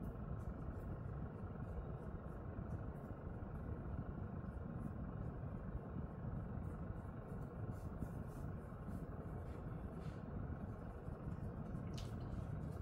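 Steady low background rumble, with faint light scratchy rustles of fingers rubbing through a dog's fur, and a slightly sharper rustle near the end.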